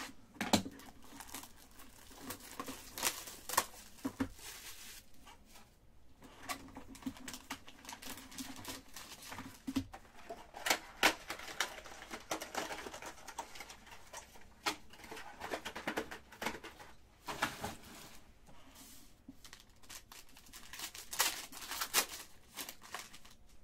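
Trading-card box and foil card packs handled and a foil pack torn open by hand: irregular crinkling, rustling and sharp crackles, with the loudest tearing about 21 to 22 seconds in as the wrapper is pulled apart.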